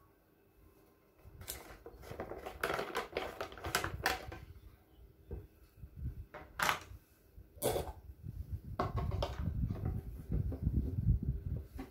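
Hands handling a thin plastic spray bottle: crackling of the plastic and sharp clicks and knocks as the trigger sprayer head is unscrewed and put down and a plastic funnel is fitted into the bottle's neck. Two sharp clicks stand out around the middle, with low rustling and knocking near the end.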